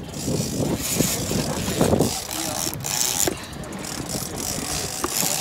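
Fishing reel cranked and clicking as an angler fights a fish on a bent rod, with muffled voices and boat noise behind it.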